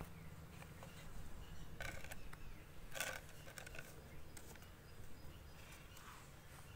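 A few short rustles, about two and three seconds in, as sheets of folded lined notebook paper are handled and set into a plastic pot, over a low steady hum.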